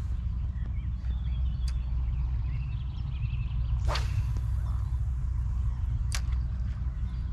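Spinning rod whipped forward in a cast: a single sharp swish through the air about four seconds in, followed about two seconds later by a short click.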